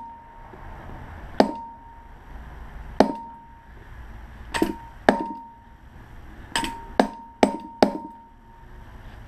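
A hammer striking a steel punch to drive copper windings out of the slots of a large electric motor stator. There are eight uneven blows, several in quick pairs in the second half, each with a short metallic ring.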